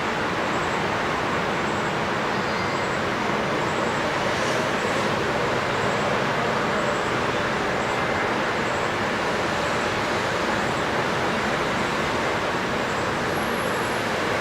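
Steady rushing of water, even and unbroken, with a couple of faint bird chirps a few seconds in.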